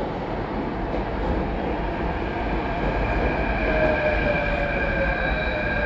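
Mumbai Metro train pulling in along the platform: a steady rumble of the carriages rolling past. About halfway through, a high electric whine joins in, with a tone gliding downward.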